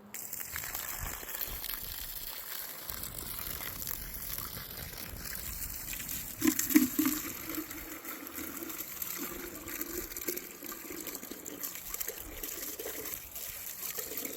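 Water running steadily into a chick waterer as it is refilled, starting suddenly at the start. A brief louder sound with a low tone about halfway through.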